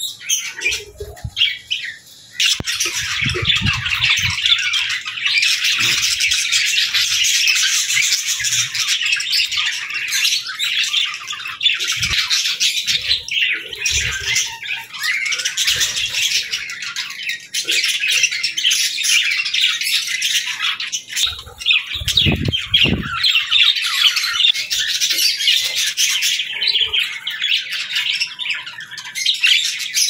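A flock of budgerigars chattering: dense overlapping warbles, chirps and squawks, which swell up about two seconds in and keep going, with a few low thumps among them.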